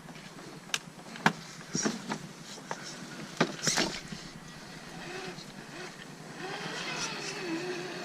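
RC crawler's electric motor and gear drivetrain whining, its pitch wavering up and down with the throttle. It comes in about five seconds in and grows louder toward the end, after several sharp knocks earlier on.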